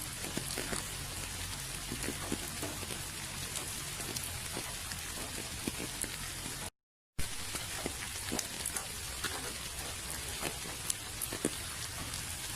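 Steady rain falling, with many separate drops tapping on surfaces. About halfway through the sound cuts out completely for about half a second, then the rain resumes.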